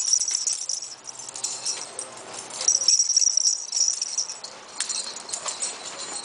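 Collar jingling from two small chihuahuas moving about and playing, in bursts: near the start and again from about two and a half to four and a half seconds in, with light scuffling and clicks between.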